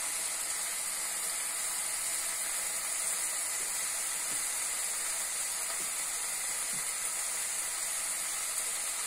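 Chopped bitter gourd, onion and garlic sizzling gently in oil in a kadai over a gas flame: a steady hiss with a few faint crackles.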